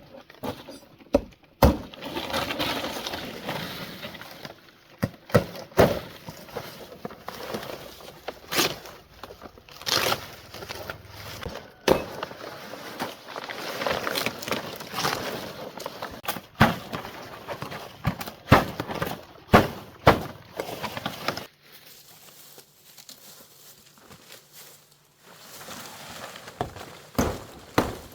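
Irregular sharp knocks and clatters over a rustling, scraping noise, like hard debris or materials being handled and broken up; the sound drops away about two-thirds of the way through, leaving a faint hum, and knocking picks up again near the end.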